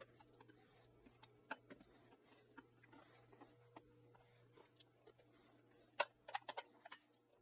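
Near silence with a faint steady hum, broken by scattered light clicks and taps from parts and tools being handled. There is a quick cluster of sharper clicks about six seconds in.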